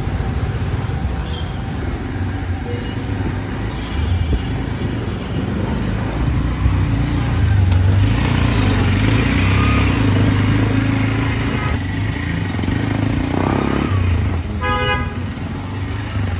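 Road traffic: vehicle engines running with a steady low rumble that swells in the middle, and a short horn honk near the end.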